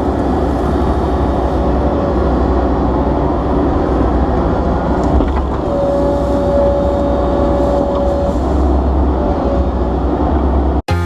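Komatsu excavator's diesel engine running steadily, with a high whine held for about three seconds midway; it cuts off suddenly near the end.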